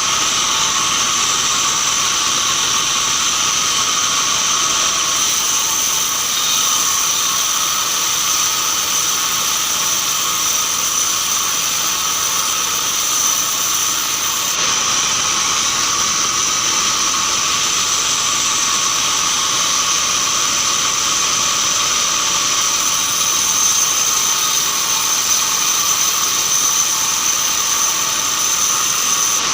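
Band sawmill running steadily: a continuous high whine over a loud hiss, unchanging throughout.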